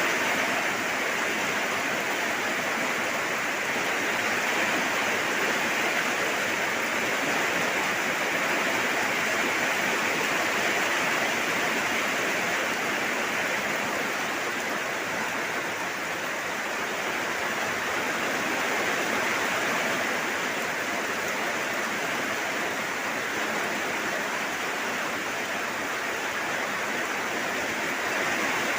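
Steady heavy rainfall, an even hiss of falling water with no separate drops or thunder standing out.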